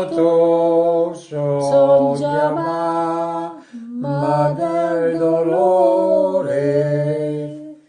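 Unaccompanied singing: a voice holding long sung notes over a low sustained drone, broken by two short pauses and fading away at the end.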